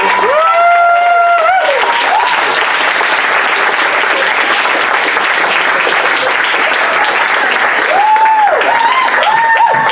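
Audience applauding and cheering a finished song. The last held sung note fades out in the first second or two, and a few whoops ring out near the end.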